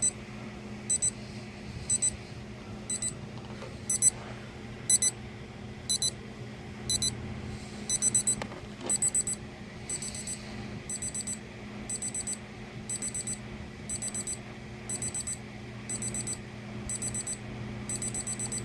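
Cheap battery-powered travel alarm clock's alarm going off at its set time: high-pitched beeps about once a second at first, then in quicker groups of two or three, becoming a rapid run of beeps near the end.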